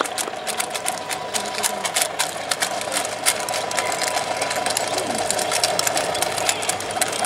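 Marching drums of a drill team playing a quick tapping cadence, several sharp strikes a second.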